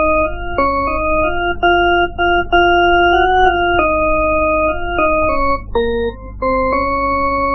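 Organ-like electronic keyboard music playing a slow melody of held notes that change every half second or so, ending on one long held note. A steady low hum runs underneath.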